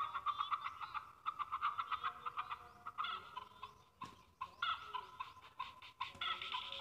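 Domestic fowl calling: rapid runs of short repeated notes that break off briefly about four seconds in.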